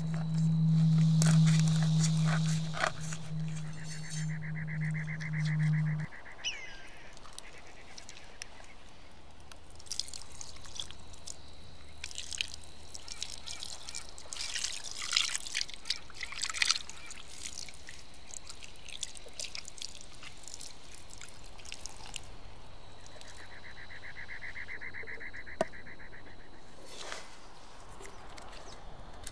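Cleaver blade scraping along a red sea bream on a wooden board, with sharp scraping strokes and taps as the fish is worked and handled, over a steady low hum in the first six seconds. A rapid trilling animal call sounds twice against a quiet outdoor background.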